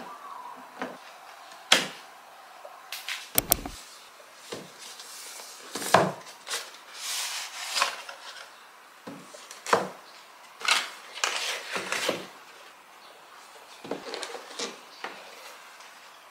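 A cardboard microphone box being handled and opened on a desk: an irregular series of knocks and taps, with cardboard rubbing and scraping as the lid and inner flaps are opened and the microphone is lifted out.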